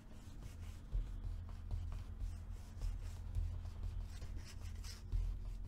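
Paper rustling and sliding as a cut paper picture is worked into a tuck pocket on a journal page, with dull bumps of hands on the table and short scattered rustles.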